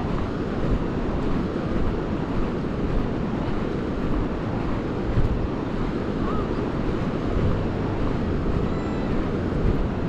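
Wind buffeting the microphone over the wash of sea surf: a steady noise, heaviest in the low end, that flutters in loudness.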